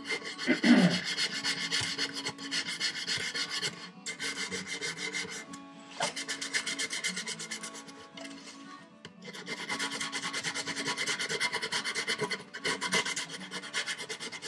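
Sandpaper rubbed back and forth in quick strokes inside a chiselled hand-hold slot in a cherry board, smoothing out chisel marks; the strokes stop briefly a few times.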